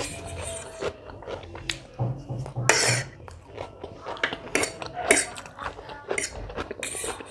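Cutlery clinking and scraping against a plate, with chewing, as a plate of egg noodles is eaten: scattered sharp clicks and short scraping bursts.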